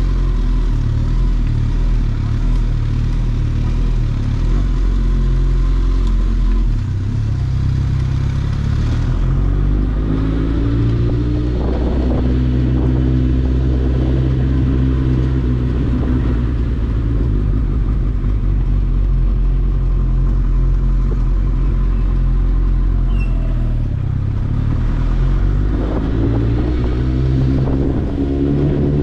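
Suzuki GSX-S1000 inline-four with a LeoVince aftermarket exhaust running at idle with a low, steady note. The engine note rises and falls a few times, about a third of the way in and again near the end.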